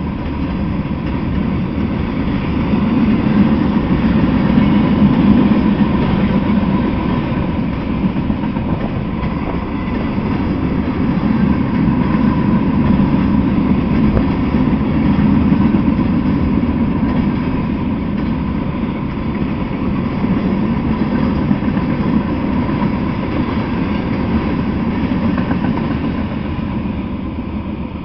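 Freight train cars rolling past at speed, a steady rumble of wheels on the rails that eases off over the last few seconds as the tail end passes.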